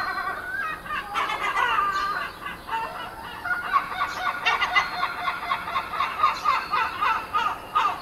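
Gulls calling: a few drawn-out gliding cries, then from about three seconds in a fast run of short, repeated high-pitched calls.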